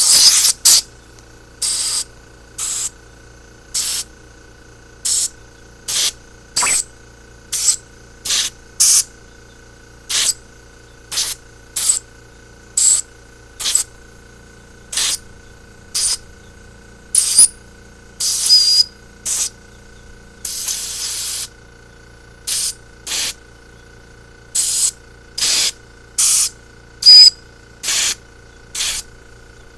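Compressed-air blow gun fired in short hissing blasts into the fuel passages and jets of a carburetor body, about one a second, with a couple held for about a second; the air is being blown through to check that the passages are clear.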